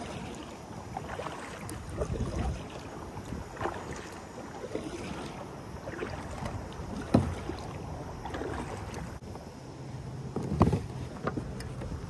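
Water splashing and sloshing against a kayak on choppy, wind-driven waves, in irregular swells every second or two. A sharp knock comes about seven seconds in.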